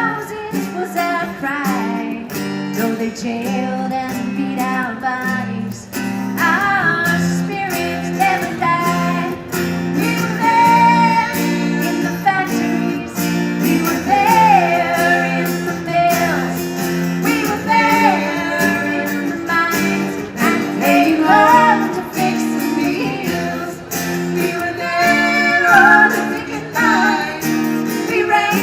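Live folk song: women singing with strummed acoustic guitar.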